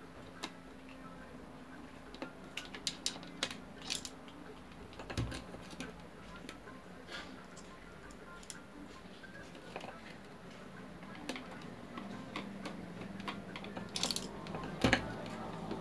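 Scattered small clicks and ticks of screws being handled and driven with a hand screwdriver into the plastic base of an electric citrus juicer. There is a knock about five seconds in and a cluster of louder clicks near the end.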